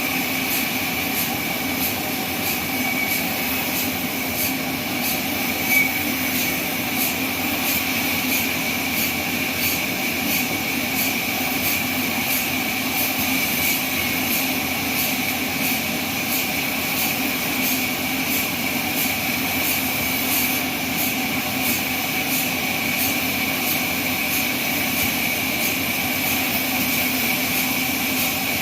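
Band sawmill running steadily: a constant mechanical whir with a steady high-pitched whine over it.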